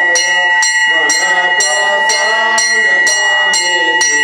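A temple bell struck steadily about twice a second, its ringing tones carrying on between strikes, over people singing a devotional hymn.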